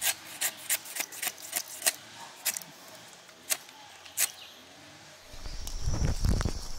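Rubber-tapping knife cutting a thin strip of bark from a rubber tree: a series of short, sharp, irregular scrapes. About five seconds in, a low rumbling noise and a steady high whine set in.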